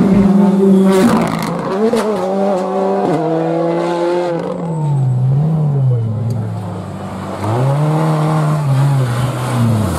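Rally car engine under hard acceleration, its pitch holding, stepping down about three seconds in, dipping to its lowest, then jumping back up as the driver gets on the throttle again, and dropping sharply near the end.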